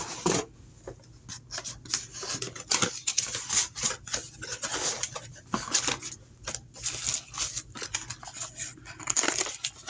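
Irregular rustling and knocking of packaging as smart lock parts are lifted out of their box, a run of short crinkly bursts.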